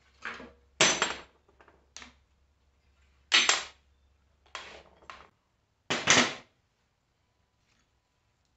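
Work noises from stripping down an ATV frame: about six short, sharp bursts of tool or metal-part noise in the first six and a half seconds.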